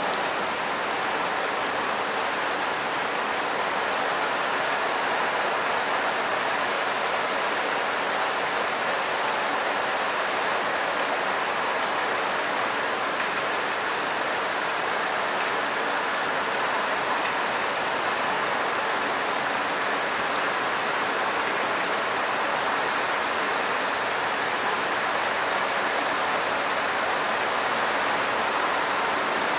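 Steady rain falling onto standing water on a paved path: an even hiss with faint pattering of individual drops splashing.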